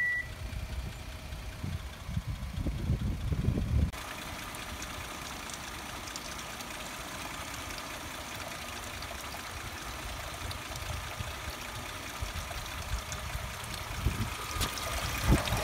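Low rumbling for about four seconds, then a thin, steady stream of coolant pouring from the 2011 Kia Sorento's radiator drain and splashing into a plastic drain pan. The flow has picked up because the warmed-up engine's thermostat has opened.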